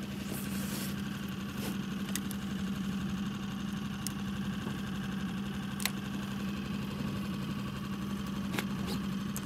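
Boat's outboard motor running steadily at slow trolling speed, an even hum, with a few light clicks over it.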